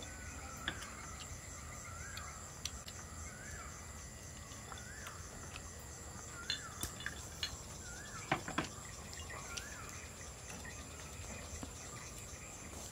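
Night-time crickets trilling steadily, with another creature's short rising-and-falling call repeated about once a second until near the end. A few light clinks of a glass and bottle being handled, the loudest about eight seconds in.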